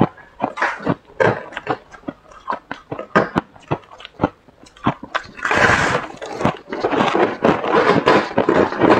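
Close-miked chewing of powdery freezer frost: a run of sharp, irregular crunches and crackles, with a denser stretch of crunching about five and a half seconds in.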